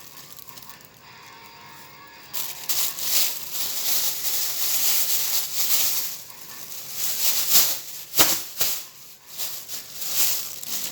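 Thin plastic carrier bag rustling and crinkling as it is handled and wrapped around fruit. It starts about two seconds in and comes in uneven bursts, with a couple of sharper crackles around eight seconds in.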